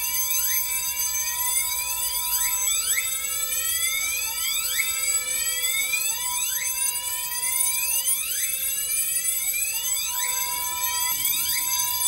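Fire alarm notification appliances sounding the 'alert commander' supervisory signal set off by a duct detector, a continuous alarm of repeated rising whooping sweeps over steady tones.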